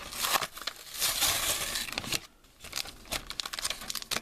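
Plastic blister pack being crinkled and torn open by hand: bursts of crackling and tearing, a short pause a little after two seconds in, then a run of small crackles and clicks.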